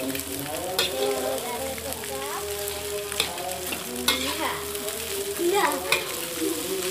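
Rice stir-frying in a metal wok: a steady sizzle under the scraping of a metal spatula against the pan, with about four sharp clinks as the spatula strikes the wok.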